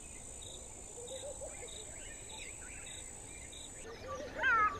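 Steady, faint high-pitched drone of insects, with a chirp repeating about twice a second. Near the end the drone stops abruptly and a bird calls several times in short rising-and-falling notes.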